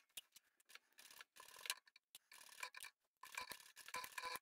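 Faint, scattered clicking and rustling at a sewing machine as towelling fabric is pinned, held down and fed under the presser foot.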